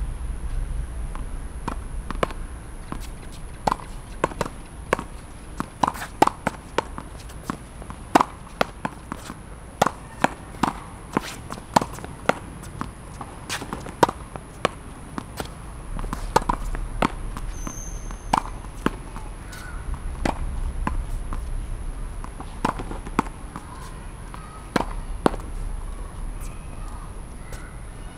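Tennis ball being hit against a practice wall over and over, a run of sharp knocks from racket strikes and wall and court bounces, about one or two a second and unevenly spaced.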